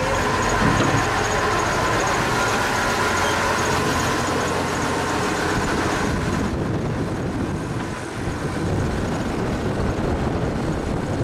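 Large 4x4 tour truck's engine running steadily, a dense rumbling noise; the higher hiss in it falls away about six seconds in.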